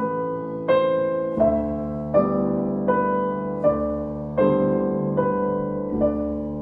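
Slow piano music: notes struck about every three-quarters of a second, each left to ring and fade before the next.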